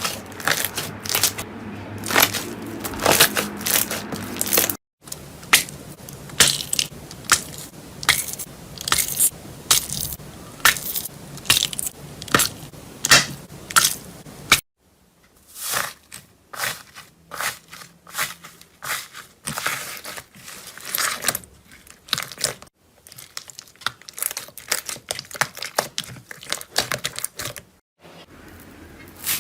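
Slime being squeezed and worked by hand, giving dense crackling and popping clicks. The sound breaks off briefly three times and picks up again each time.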